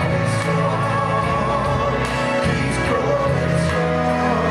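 Music: a vocal group singing long, wavering held notes over an instrumental accompaniment with a steady bass line.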